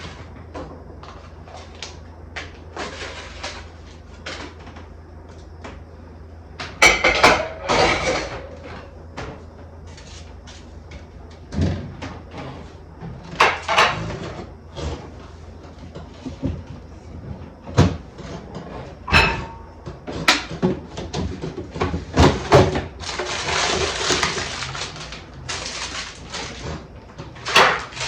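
Items being taken out of a refrigerator and set down: scattered knocks, clatters and rustles of containers and packages being handled, some sharp, under a low steady hum.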